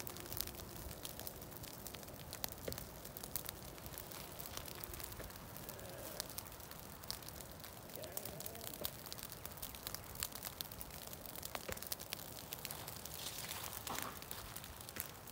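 Faint, scattered crackling and clicking of dry leaves and twigs underfoot.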